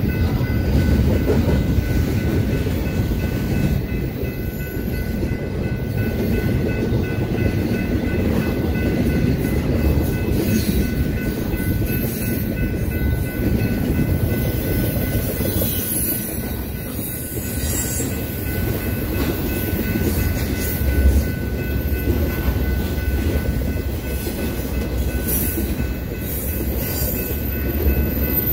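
Intermodal freight train's double-stack well cars and trailer flatcars rolling past: a steady rumble of steel wheels on rail, with a few faint steady high tones over it.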